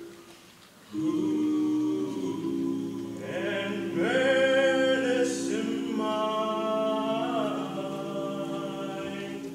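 Male a cappella group singing in close harmony. After a brief pause, a sustained chord comes in about a second in, a higher lead voice rises and holds over it midway, and the chord fades out near the end.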